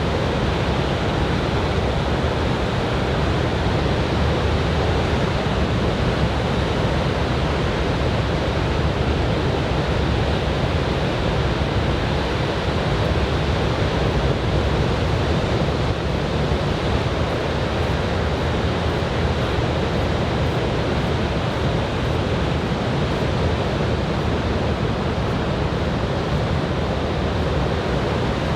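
Ocean surf from a typhoon swell breaking and washing onto a sandy beach: a steady, unbroken wash of waves, heaviest in the low range.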